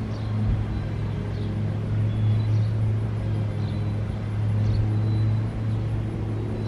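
A steady low mechanical hum, with faint short high chirps about once a second; no siren tone is sounding.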